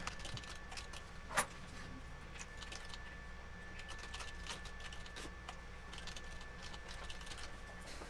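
Typing on a computer keyboard: a run of quiet, irregular key clicks, with one louder keystroke about a second and a half in.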